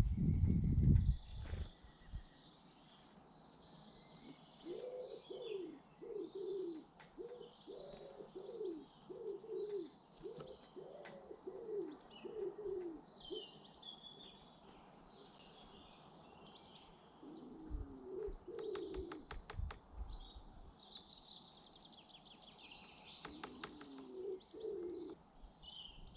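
A pigeon cooing in low, repeated notes, in a long series and then two shorter phrases, while small garden birds chirp and twitter high above throughout. A low rumble opens it, and a quick run of clicks comes a little past the middle.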